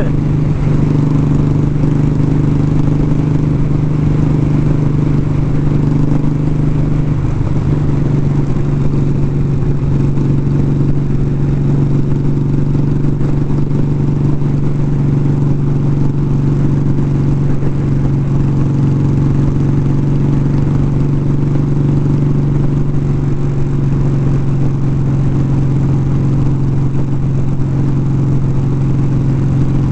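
Motorcycle engine running at a steady cruising speed, heard from a helmet-mounted mic with wind buffeting it. The engine note shifts slightly about seven seconds in.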